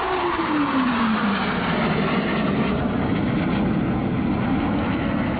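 Four Blue Angels F/A-18 Hornet jets of the Diamond formation passing: a falling whine in the first second and a half as they go by, then a steady loud jet roar.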